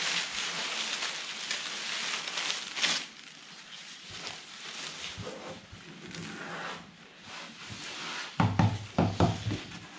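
Thin, dry strips of peeled-off plywood veneer being torn and crumpled by hand. A dense crackling rustle lasts about three seconds, then lighter rustling as the strips are gathered up, with a few dull knocks near the end.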